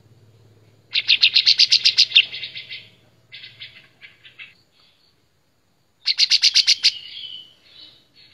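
Kapas tembak (olive-winged bulbul) singing in full voice. It gives two loud bursts of rapid, evenly repeated notes, about ten a second, one about a second in and one about six seconds in. Each burst trails off into softer, scattered notes.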